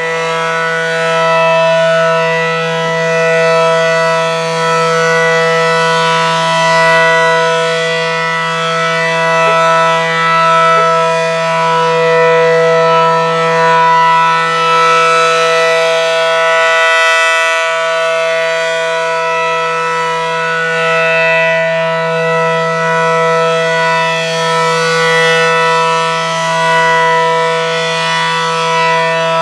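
Low-pitched ACA Allertor outdoor warning siren sounding a steady alert: one held chord of tones that does not rise or fall in pitch, its loudness swelling and fading slowly.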